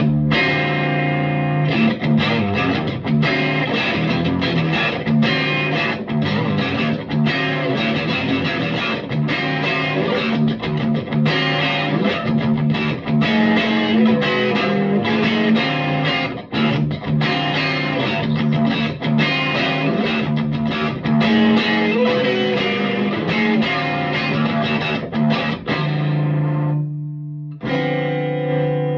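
Electric guitar played through a Vintage Sound Amp's tweed channel with its volume at about 6.5, giving an overdriven, breaking-up tone. A steady run of picked chords and single-note lines, ending on a ringing chord.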